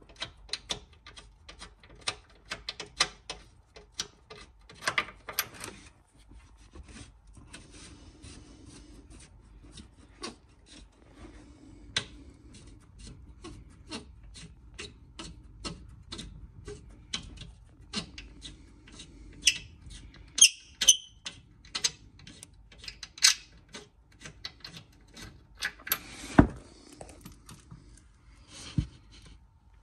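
Ratcheting spanner clicking in short runs as engine-mount bolts are worked loose, with a few louder metal clinks of tools about two-thirds of the way through.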